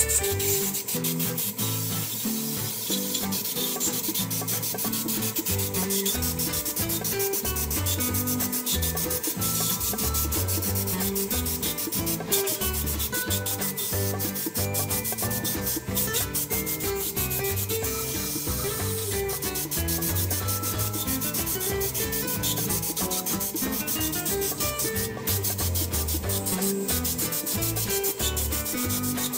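Continuous rapid rubbing and rasping, like sanding or scraping by hand, with a faint steady hum underneath.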